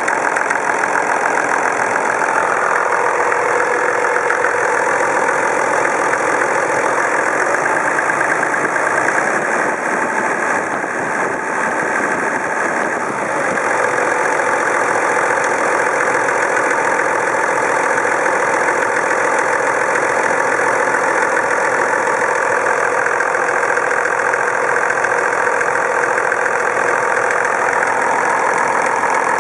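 Toyota Land Cruiser HDJ80's 4.2-litre straight-six turbo-diesel engine idling, with an irregular rattle from somewhere in the engine whose cause is not known. The engine runs steadily, a little quieter for a few seconds near the middle.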